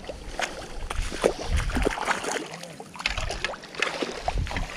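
A small hooked carp thrashing and splashing at the surface in the shallows as it is drawn into a landing net, in irregular splashes, with wind buffeting the microphone.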